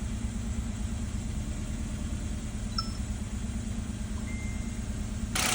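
Kia Rio engine idling steadily after repair of corroded wiring to the cylinder 2 injector; it runs without the shaking it had before.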